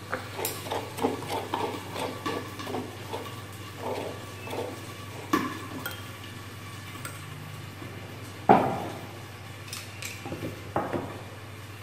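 Metal spoon scraping pounded garlic, shallot and chili paste out of a wooden mortar and knocking it off into a small glass cup: a quick run of scrapes and taps, then a louder ringing clink of spoon on glass about eight and a half seconds in, and a few more taps near the end.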